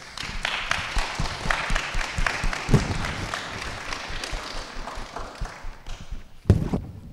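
Audience applauding, the clapping thinning out and fading over several seconds. A single thump near the end.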